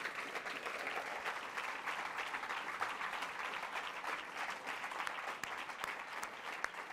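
Large audience applauding steadily, the clapping thinning slightly near the end.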